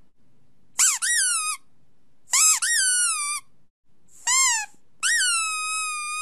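Four high-pitched squeaks, each jumping up in pitch and then sliding down. They come roughly one to two seconds apart, and the last is held steady for more than a second. It is a sound played to draw a dog's reaction.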